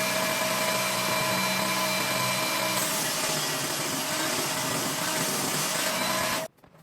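Skil table saw running and ripping through a thick oak beam: a steady, loud motor-and-blade whine with several fixed tones, shifting slightly about three seconds in as the load changes. It cuts off abruptly shortly before the end.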